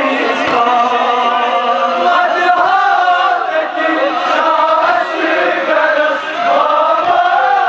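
A crowd of men chanting a Kashmiri noha, a mourning lament, together, led by a reciter singing into a microphone.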